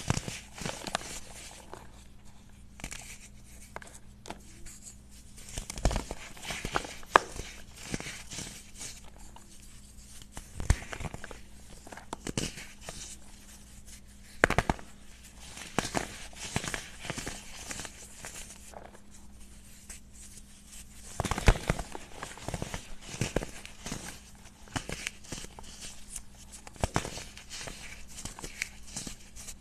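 Hands crushing and crumbling blocks of powdery chalk: irregular crunches and crackles, with a soft rustle of powder between them and louder clusters of crunching now and then.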